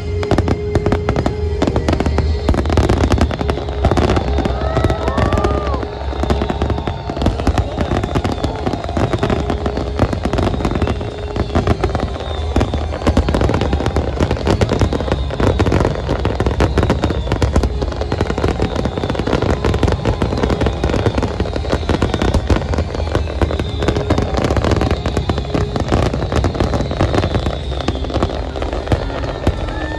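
A large fireworks display going off without pause: dense, rapid crackling and bangs over a continuous low rumble, with a few short whistles about five seconds in. Music plays underneath.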